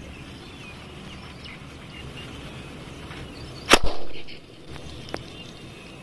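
Sky shot firework launching from its tube: about four seconds in, a sharp double crack running straight into a short, fading whoosh. A faint single click follows about a second later.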